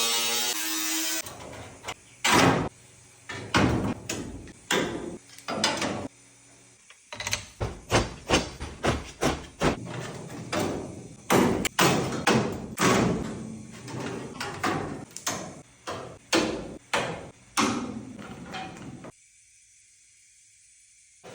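A power tool whines steadily for about a second and stops. Then a hammer strikes the VW bus's sheet-metal body over and over, in irregular blows about one or two a second, stopping a couple of seconds before the end.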